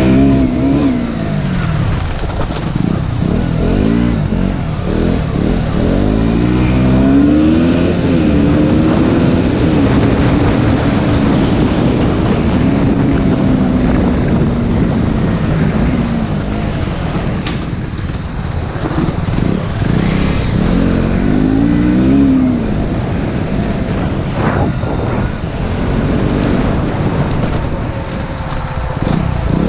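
Motorcycle engine under way, its pitch rising and falling again and again as the throttle is opened and closed. A few sharp knocks cut through it.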